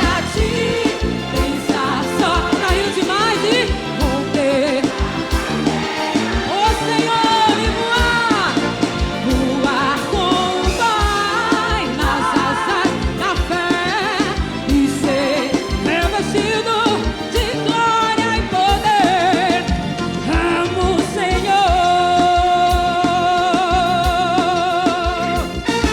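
Live forró band music with a steady beat on drums, percussion and bass, under a melodic lead from accordion and horns.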